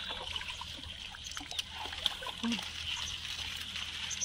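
Water splashing and trickling as a bamboo-framed fishing net is worked and lifted through a pond thick with water hyacinth, with scattered small drips and clicks.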